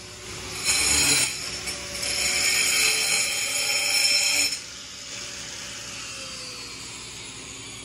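Handheld angle grinder cutting a groove into the underside of a stone countertop: a short first pass, then a steady whining cut of about three seconds. The cut stops suddenly about four and a half seconds in, and the grinder's pitch falls as it winds down.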